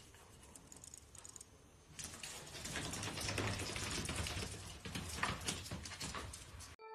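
Faint scuffling with many small clicks, starting about two seconds in: a tabby kitten scrabbling and rolling on a tiled floor.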